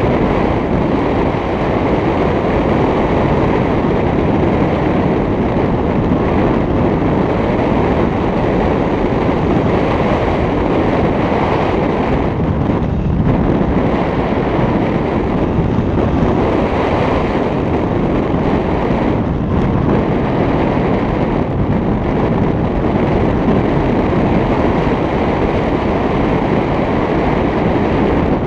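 Airflow buffeting a pole-mounted GoPro's microphone in paragliding flight: loud, steady wind noise, dipping briefly now and then.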